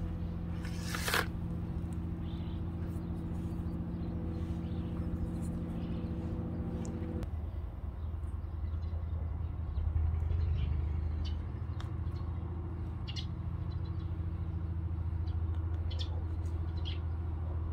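A steady low motor hum, like an engine running, that changes to a lower, rougher drone about seven seconds in. A few faint light taps sit above it.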